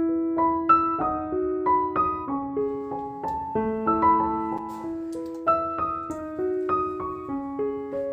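Background piano music: a gentle melody of plucked-sounding notes at an even pace.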